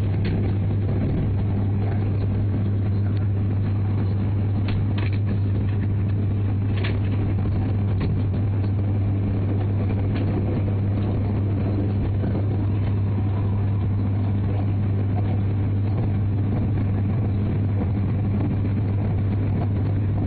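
E3 series Komachi Shinkansen train running steadily, heard from inside the passenger car: a constant low hum and rumble with a few faint ticks in the first eight seconds or so.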